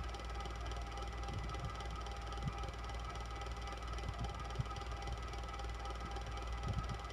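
Electric fan running steadily: a low motor hum with a few thin, steady whining tones over an even rush, and soft irregular low bumps now and then.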